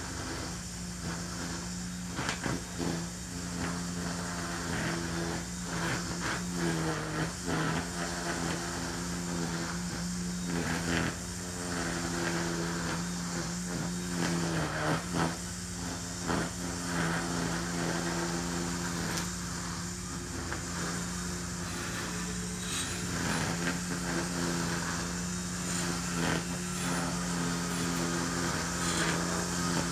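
Ryobi 40V battery string trimmer running with a steady hum while cutting tall centipede grass, its pitch dipping briefly a couple of times as the line bogs in the thick growth, with scattered ticks of grass and debris hitting the line.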